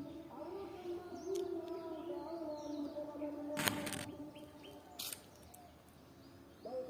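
Outdoor ambience: faint bird chirps over a steady, slightly wavering hum, with two short noisy bursts partway through.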